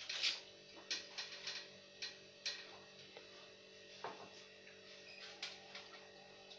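Scattered light clicks and taps of a frying pan being handled and shifted on a gas stove's grate, with a faint steady hum underneath.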